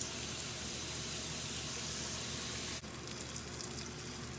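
Kitchen tap running steadily as rice is rinsed, with a brief break near three seconds in.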